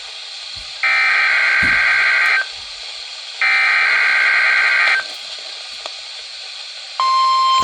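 NOAA Weather Radio alert broadcast: two buzzing SAME digital header bursts, each about a second and a half long and a second apart, with radio hiss between them. About 7 s in, the steady single-pitch 1050 Hz warning alarm tone begins, here opening the weekly test of the Weather Radio warning alarm system.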